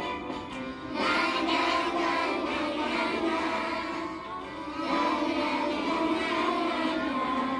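Music with a singing voice; it grows louder about a second in, softens around four seconds and comes back up about five seconds in.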